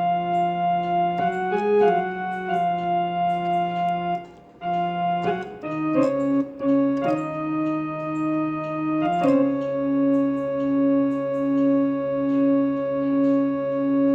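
Casio electronic keyboard on its harmonium voice, playing a slow melody over held reedy chords with a gentle regular pulsing swell. There is a short break about four seconds in, and it ends on a long sustained chord.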